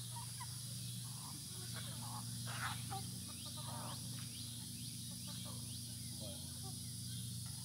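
Chickens clucking and making short scattered calls, one louder call about two and a half seconds in, over a steady high-pitched hiss and a low hum.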